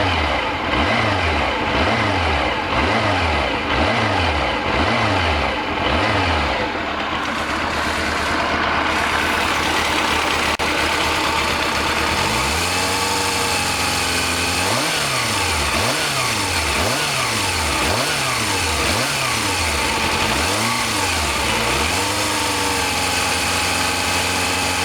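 Honda CB400 Super Four (NC31) inline-four engine revved in a series of quick throttle blips, about one a second, then held at a steady higher speed; this happens twice. Around 3000 rpm it carries a whirring 'hyun-hyun' noise that the owner says other NC31s don't make, cause unknown.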